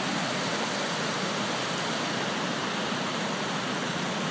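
Floodwater of a swollen creek rushing past, moving really fast: a steady, even rush of water.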